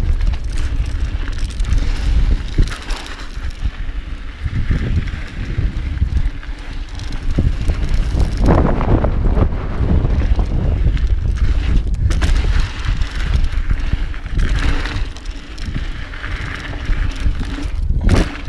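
Mountain bike being ridden over a dirt trail: tyre noise and a running clatter of knocks and rattles from the bike, with heavy wind buffeting the microphone.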